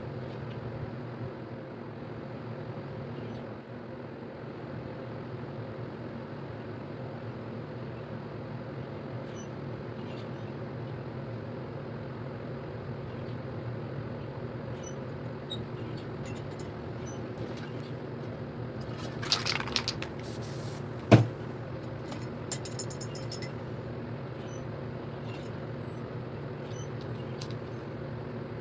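Steady low motor hum, like a fan running, with a short hiss about two-thirds of the way through, a sharp click just after it, and a few faint ticks.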